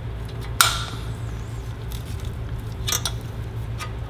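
A few sharp metal clicks, the loudest about half a second in and another near three seconds, as valve-train parts are fitted by hand on a Predator 212 engine's cylinder head. A steady low hum sits underneath.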